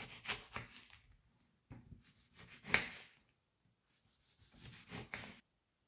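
Knife cutting through an orange's peel and flesh on a cutting board: three spells of rasping cutting strokes with short gaps between, the loudest, sharpest stroke about halfway through.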